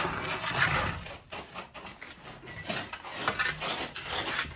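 Metal baking tray scraping and knocking over the brick floor of an old stone oven as it is pushed in with a wooden peel: irregular scrapes and short knocks.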